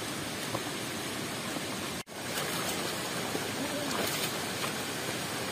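Steady rushing hiss of heavy rain and running water, broken by a split-second dropout about two seconds in.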